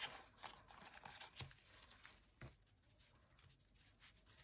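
Faint rustling and a few light taps of paper scraps and cut-outs being handled and pressed down by hand.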